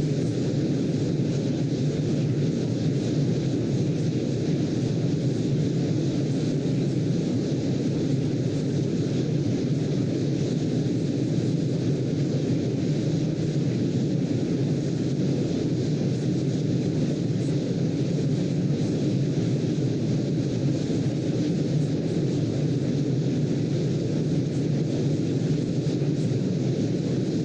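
Steady low rumbling noise, even throughout with no swells or breaks: a brown-noise sleep sound.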